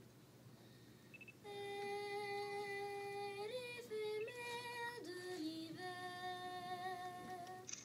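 A group of children singing a slow song in unison, unaccompanied. The voices come in about a second and a half in and hold long, steady notes, with a few quick changes of pitch in the middle.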